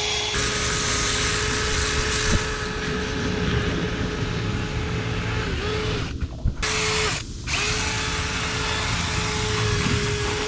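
Drill spinning a rotary cleaning brush through a dryer vent duct: a steady motor whine over a broad rushing, scraping noise. It stops twice briefly, a little past halfway.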